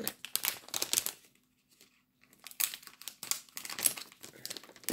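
Plastic sweets bag crinkling as it is handled, then quiet for about a second, then crinkling and tearing as the bag is pulled open.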